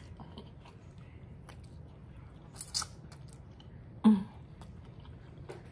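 Close-up mouth sounds of someone eating noodles: chewing with small wet clicks, a short hissing slurp a little before halfway, and the loudest slurp about four seconds in as a noodle strand is sucked between pursed lips.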